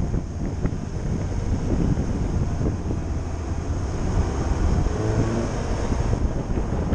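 Wind buffeting the microphone at speed over a steady low road rumble from rolling on rough asphalt.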